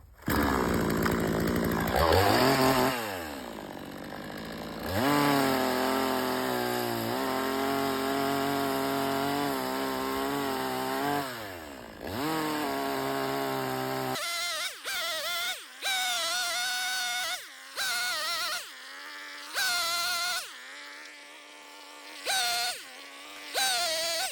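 Chainsaw revving up and down, then held at high speed for several seconds as it cuts, dropping back about twelve seconds in. After that it is blipped in a series of short bursts, each about a second long.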